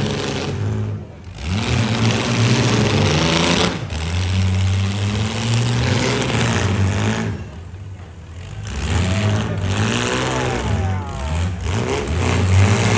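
Demolition derby car engines revving hard, their pitch rising and falling, with two short lulls when the throttle eases, about a second in and around eight seconds.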